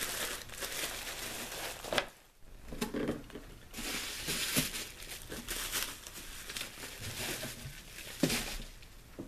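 Plastic packaging crinkling and cardboard rustling as items are lifted out of a shipping box, in irregular handling noises with a sharp knock about two seconds in and another near the end.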